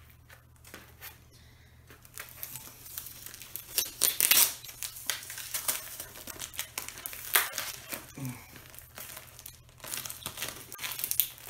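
Parcel wrapping being crinkled and torn open by hand, in irregular rustles and rips; the parcel is very tightly wrapped and hard to get into. Quieter for the first couple of seconds, with the loudest tearing about four seconds in.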